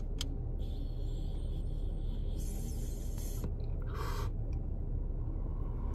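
Air drawn hissing through a portable electric dab rig during a long inhale of a dab, followed by a shorter burst of breath about four seconds in, over a low steady rumble.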